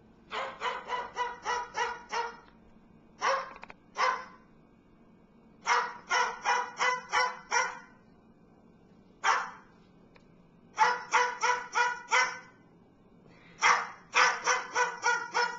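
Pet bird mimicking a dog's bark: runs of quick barks, about three a second, broken by single barks and short pauses.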